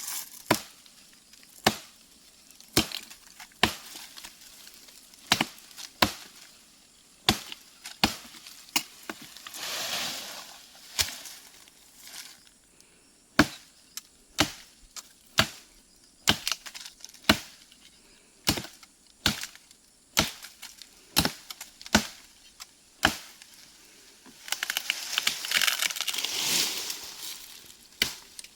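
Repeated chopping blows of a hand blade into tree wood while trimming branches, sharp strikes about once a second. A longer rustling noise comes twice, near the middle and near the end.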